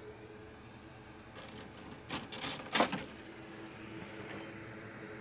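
Clatter of loose laptop logic boards being picked through and shuffled, hunting for donor resistors: a handful of sharp knocks about a second and a half to three seconds in, the loudest near the three-second mark, and one more knock near the end, over a steady low hum.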